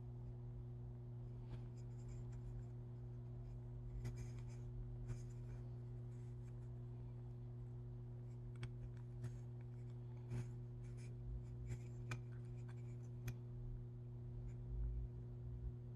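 Small irregular clicks and scratches as fingers fit a brass part of a puppet's eyeball mechanism into a carved wooden head, over a steady low hum.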